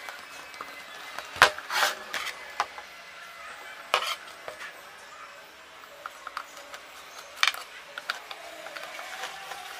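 Metal clinks and knocks from a screwdriver working the Phillips cover screws out of a Maruti 800 mechanical fuel pump and being set down on the bench. A sharp knock about one and a half seconds in is the loudest, with further clinks near four and seven and a half seconds.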